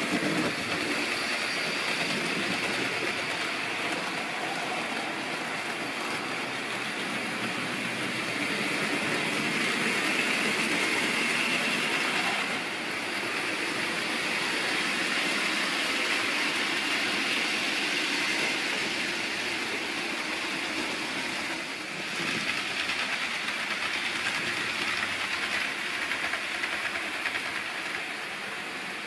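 OO-gauge model trains running on a layout: a steady rolling clatter of small wheels over the track, which shifts in level twice as the shot changes.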